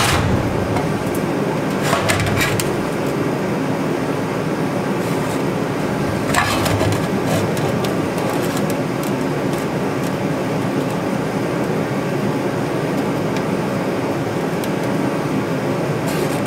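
Steady background noise with a few short, light knocks of metal on the sheet-metal floor pan, as a tape measure and a small steel template plate are set down on it.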